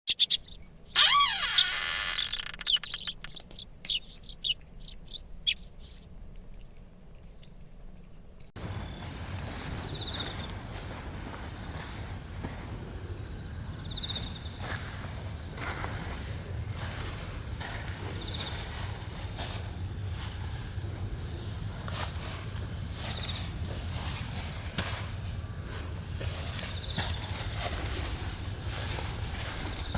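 Insects chirping in a steady, evenly pulsing high-pitched chorus, which starts abruptly about eight seconds in. Before that there is a short stretch of clicks and chirp-like sounds.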